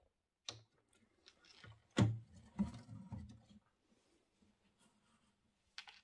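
Wooden hutch door being handled and shut: a click, then a sharp wooden knock about two seconds in with a second or so of low knocking after it, and another click near the end.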